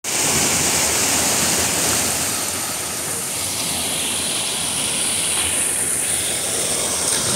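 Steady rush of a rocky mountain stream cascading over boulders into a pool.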